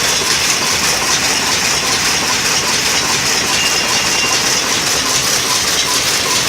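Power loom running, a loud steady mechanical clatter with a faint even beat of a few strokes a second.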